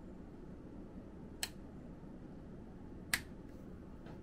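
Push-button switch on the base of a metal bedside desk lamp clicking: two sharp clicks about a second and a half apart, the second louder, followed by a couple of fainter clicks near the end.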